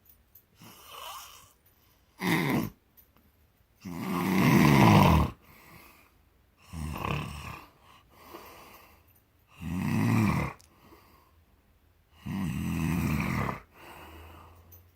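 A man snoring in his sleep: about six harsh snores at uneven intervals of two to three seconds, the loudest about four seconds in, with quiet breathing gaps between.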